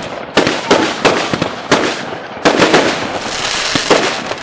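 Consumer fireworks going off in quick succession: about seven sharp bangs, irregularly spaced, each trailing off in a hissing decay as the white stars burst.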